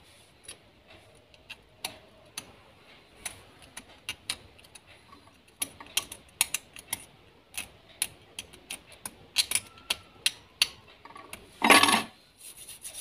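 Razor blade scraping carbon off a switch's copper contact point: a run of short, irregular metallic ticks and scratches that come faster after about halfway, with one longer, louder scrape near the end. The contact is blackened with carbon from arcing.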